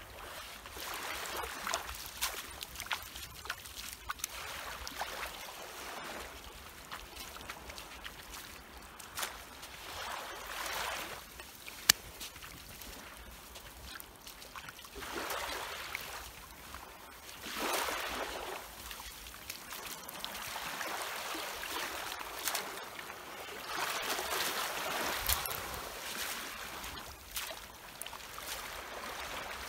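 Shallow seawater splashing and sloshing in repeated swells as a person wades barefoot and sweeps a long-handled dip net through the water and lifts it out dripping. A sharp click a little before the middle.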